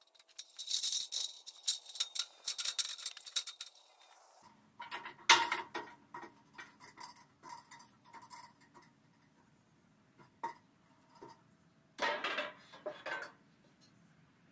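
Light metallic clinks and rattling from handling a steel siding sheet and trim on an aluminium ladder. A sharper clank a little after five seconds rings briefly, and another burst of clatter comes about twelve seconds in.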